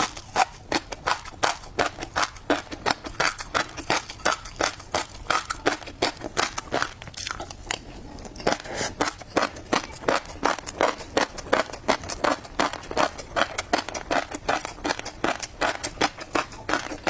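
Tobiko (flying fish roe) popping and crunching as it is chewed, an ASMR eating sound: a rapid run of small crisp clicks, about four to five a second, with a short pause about eight seconds in.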